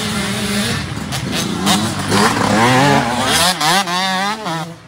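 Motocross dirt bike engines revving close by as riders crest the hill, loudest around the middle, with quick rises and falls in revs near the end as a bike passes and heads downhill.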